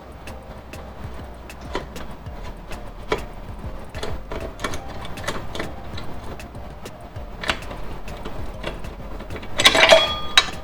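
Metal clicks and knocks as a motorcycle's rear axle is worked out through the swingarm and wheel hub. Near the end comes a louder, ringing metallic clatter.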